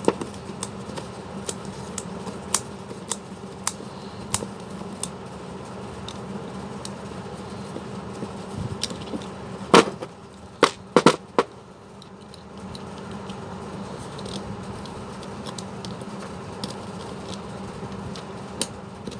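Metal tools clicking and tapping on a cordless drill's chuck, with a few louder knocks around ten to eleven seconds in, over a steady low hum.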